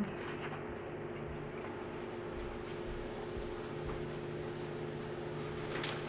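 A fledgling tit giving a few short, very high cheeps, most in the first two seconds and one more midway, over a steady low hum.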